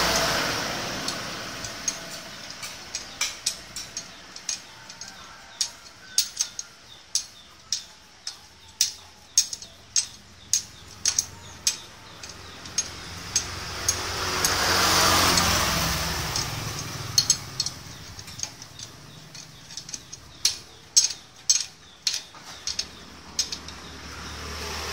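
Ratchet wrench clicking in quick runs as the oil drain bolt on a motorcycle engine is tightened back in after draining the oil. A passing vehicle swells up and fades away about midway through.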